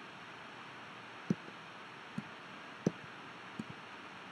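Several short clicks from a computer's pointing device, irregularly spaced, over a steady faint hiss, as an image is clicked, dragged and resized.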